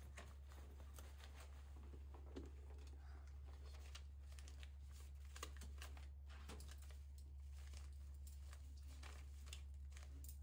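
Near silence: a steady low hum with faint rustling and small clicks of paper banknotes and a handbag being handled.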